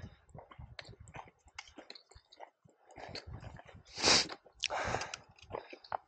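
Footsteps crunching on a dirt-and-gravel trail, with scattered small clicks and scrapes. Two loud bursts of hiss come about two-thirds of the way through.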